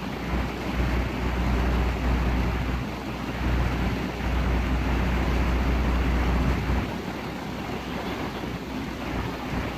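Motorboat under way: its engine running steadily with water rushing past the hull. A deep rumble sits underneath and drops away suddenly about seven seconds in.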